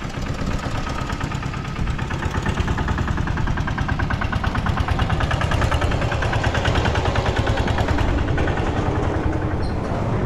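Quadcopter drone's propellers buzzing steadily in flight.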